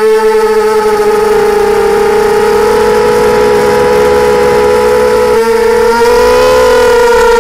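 FPV quadcopter's brushless motors and propellers whining loud and steady in flight, picked up by the onboard camera. The pitch shifts slightly about five and a half seconds in and wavers briefly as the throttle changes.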